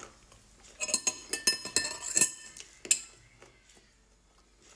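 Metal spoon clinking and scraping against a small glass bowl of ice cream, a quick run of clinks lasting about two seconds, with the glass ringing briefly.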